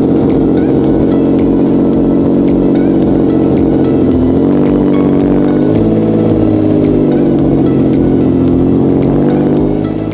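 Lamborghini Diablo's V12 engine running loud and steady, its pitch dipping and then lifting a little about halfway through.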